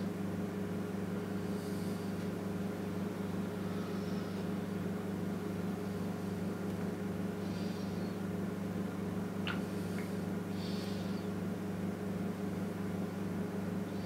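Steady low electrical or fan hum, with a few faint soft scratches of a broad marker drawn across paper and a brief squeak about nine and a half seconds in.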